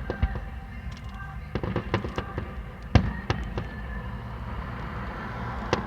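Fireworks going off: a rapid, irregular series of sharp cracks and bangs over a low rumble, the loudest bang about three seconds in.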